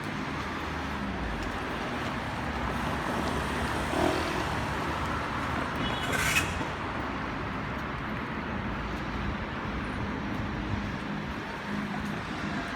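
Street ambience of road traffic: a steady hum of car engines and tyres, with a short hiss about six seconds in.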